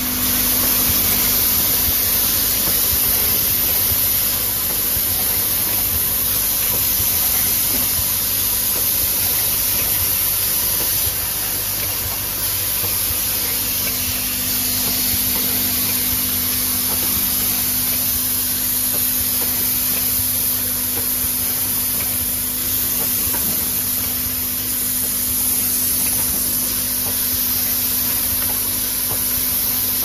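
Automatic flat-bottle filling, plugging and capping machine running: a steady hiss over a low machine hum, which fades for a while and comes back about halfway through.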